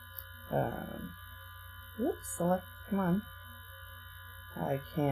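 A steady electrical hum and high whine from the recording setup, with a few short murmured voice sounds about half a second in, two to three seconds in, and near the end.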